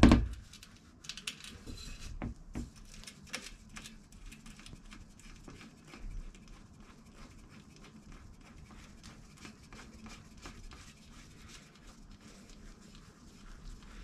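A sharp knock, then many small irregular clicks and taps of hands screwing the lock nut down a tubeless valve stem in a bike rim; the clicks thin out near the end.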